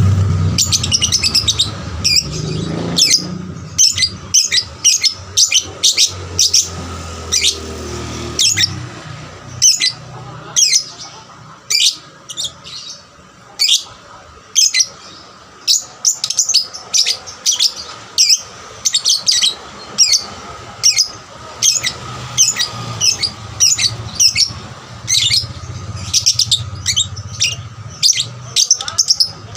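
Young lovebird chirping busily: a long run of short, sharp, high chirps, several each second. A low rumble lies under the first eight seconds and returns near the end.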